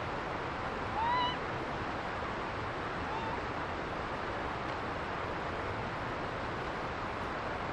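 Japanese macaque (snow monkey) giving two short rising coo calls, a clear one about a second in and a fainter one about three seconds in, over a steady rushing hiss.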